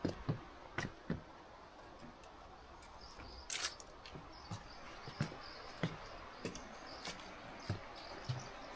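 Footsteps of a hiker walking steadily along a mountain trail, a step about every half second or so, with a brief rustle a few seconds in. Insects keep up a steady high-pitched buzzing behind them from a few seconds in.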